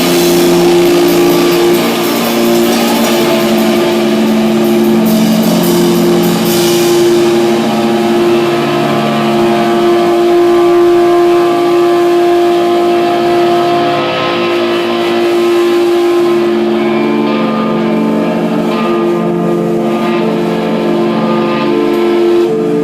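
Live band music: long held electric guitar notes ringing over a steady drone, with a cymbal wash in the first few seconds that then falls away.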